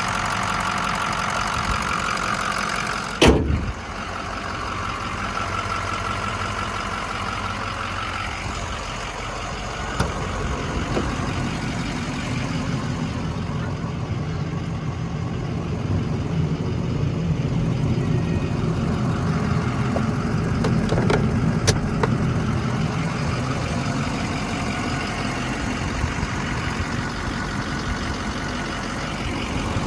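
Ford 6.0 Power Stroke V8 turbo-diesel idling steadily, with one sharp, loud knock about three seconds in and a couple of faint clicks later on.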